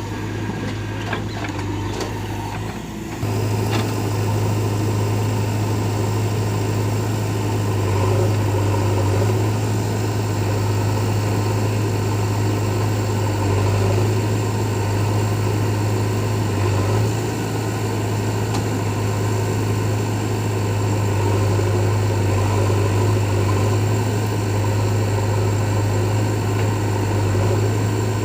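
Diesel engine of heavy farm or earthmoving machinery running steadily with a deep, even hum; it gets louder about three seconds in and then holds.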